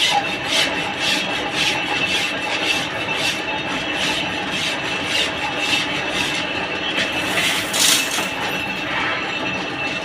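Lathe turning a trolley axle, the cutting tool scraping the spinning work with a regular rasp about twice a second over a steady high whine. One stronger scrape comes near the end.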